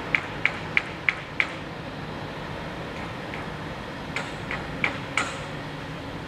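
Sharp metallic knocks from construction machinery, about three a second for the first second and a half, then a few more spaced out later, over the steady hum of diesel engines running.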